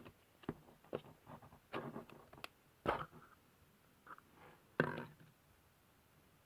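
Irregular light knocks and clicks, about a dozen, loudest about three seconds in and again near five seconds.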